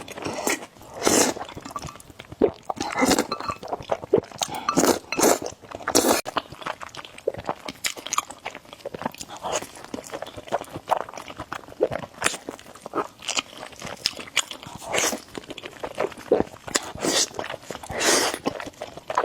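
A person eating noodles: irregular chewing and slurping noises in quick succession, with an occasional clink.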